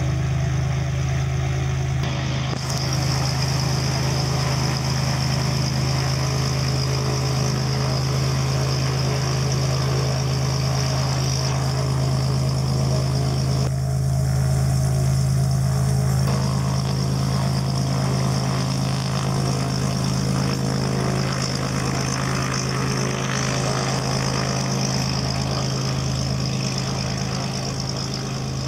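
Piper PA-32R single-engine plane's six-cylinder piston engine and propeller running steadily at low power while taxiing, a low-pitched steady sound that grows a little quieter near the end as the plane moves away.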